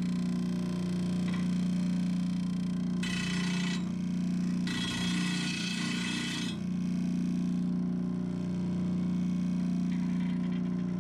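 RBG blade grinder's electric motor running with a steady hum while a steel mulching mower blade is ground against its spinning disc. Two grinding passes come about 3 s in and from about 5 to 6.5 s in, with a lighter touch near the end.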